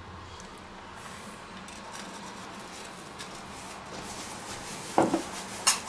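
Quiet kitchen room tone, then two short, sharp knocks of hard objects being handled, about two-thirds of a second apart near the end.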